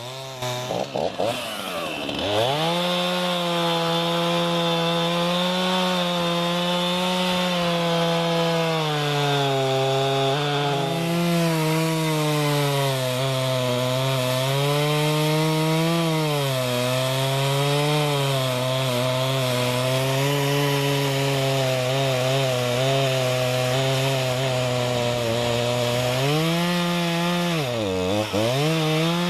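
Stihl MS 251 C-BE 45.4 cc two-stroke chainsaw running near full throttle and cutting wood, its engine pitch sagging under load and recovering several times. Near the end it dips steeply and picks back up.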